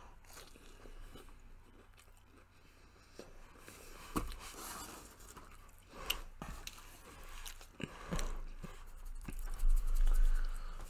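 Quiet chewing of a fried chicken nugget, with scattered small clicks and paper rustles from hands at the table, and a low bump near the end.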